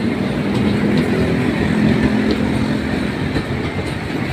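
Passenger train coaches rolling past close by: a steady rumble of wheels on the rails with a few faint clicks.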